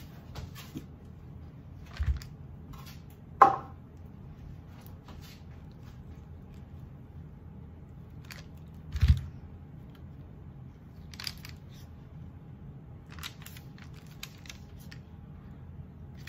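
Handling noises as a loaf of soap in a silicone liner is worked out of a wooden mould: two dull thumps, one short sharp knock-like sound about three and a half seconds in, and scattered light clicks and plastic rustles, over a faint steady hum.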